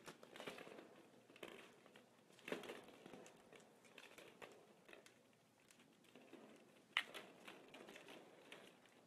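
Faint, scattered light clicks and rustles of hollow plastic ball-pit balls knocked and rolled about on a wooden floor by a puppy, the sharpest click about seven seconds in.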